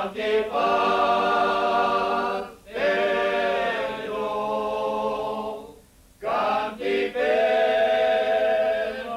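Men singing a Gascon song together, unaccompanied, in long held phrases with breaths about two and a half and six seconds in.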